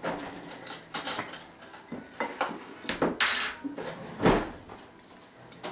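Kitchen clatter of dishes and cutlery: a metal spoon and bowls clinking and knocking on the counter in a string of separate clinks, the loudest knock about four seconds in.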